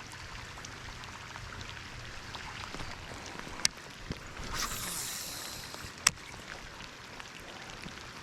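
Faint steady riverside water ambience, broken by two sharp clicks and, about halfway through, a brief hissing swell.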